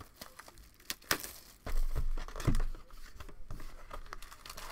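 Wrapping on a trading-card hobby box and its packs crinkling and tearing as hands open the box and handle the packs, in irregular crackles and rustles that are loudest about two seconds in.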